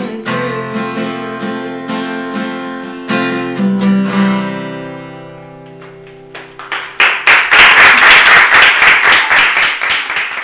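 Acoustic guitar played solo, with no voice: picked notes and a chord left ringing and slowly fading, then loud, fast strumming from about seven seconds in.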